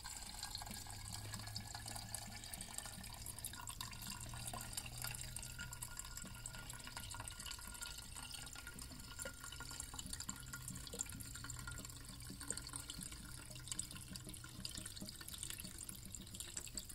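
Gasoline pouring in a faint, steady trickle from a gas can into a chainsaw's fuel tank.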